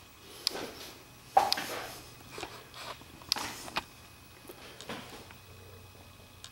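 Several sharp clicks and knocks with short rustling noises between them.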